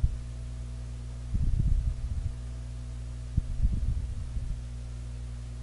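Steady low hum with two short spells of dull low knocks: a salmon fillet being handled on a cutting board while its pin bones are pulled out.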